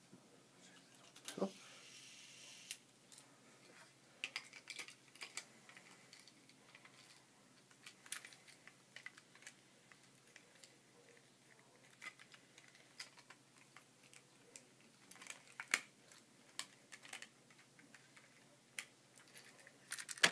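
Irregular light clicks and taps of small plastic parts being handled as a battery is fitted into a battery-powered Trackmaster toy engine.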